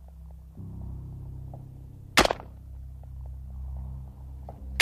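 A 5.56 mm C7 rifle fired in single shots: one sharp shot about two seconds in and another right at the end, each with a short ringing tail. Under the shots runs a low, steady synthesizer music drone.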